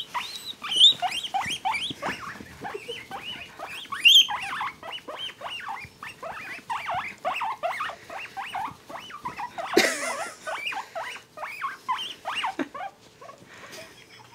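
Guinea pigs squeaking while being tickled and petted: a rapid run of short, high chirps, several a second, that dies away near the end. One sharp knock about ten seconds in.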